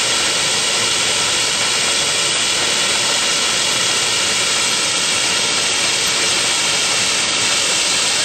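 1904 steam fire engine working at a pumping demonstration: a loud, steady hiss of steam and exhaust from its stack, with no break or rhythm.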